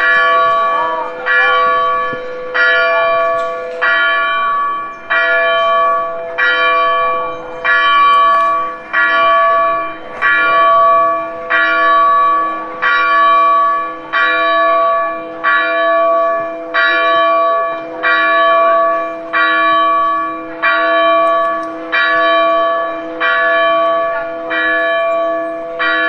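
Church bell ringing steadily, struck about once a second, each stroke's ring carrying on into the next.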